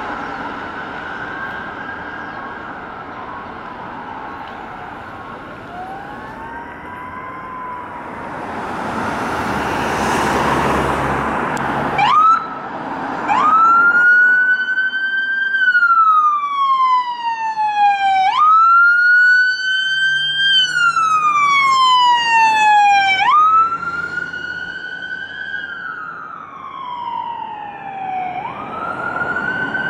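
Ambulance siren on a slow wail, loud and close: each cycle rises fast and then falls slowly, repeating about every five seconds. Before it, traffic noise with a fainter, distant siren.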